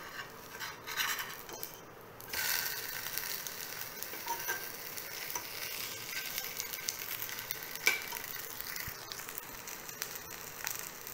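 Semolina cheela frying in oil on a hot non-stick tawa. A steel spatula scrapes under it, then about two seconds in it is flipped and the sizzling turns louder and steady. There is a single sharp click near eight seconds.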